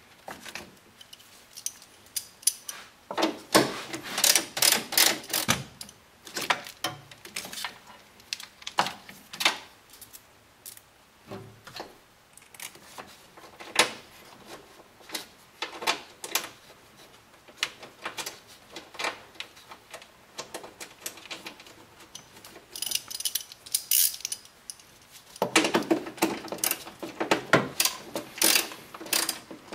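Socket ratchet wrench clicking in quick runs of ticks while bolting wiring leads to a car battery terminal and chassis ground. The densest runs come a few seconds in and again near the end, with scattered clicks of tools and parts being handled between them.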